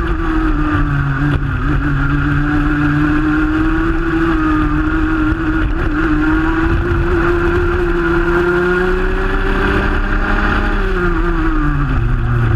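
Racing kart's Rotax Junior Max 125cc single-cylinder two-stroke engine heard onboard at racing speed. Its note drops at the start as the kart slows, climbs slowly as it pulls for about ten seconds, then drops again near the end.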